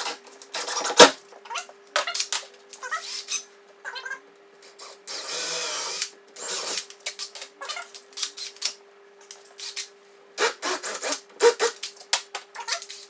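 DeWalt cordless drill driving screws in short bursts, with knocks and handling noise, as door stop strips are fixed to a wooden door lining; one longer drill run about five seconds in. A faint steady hum sits underneath.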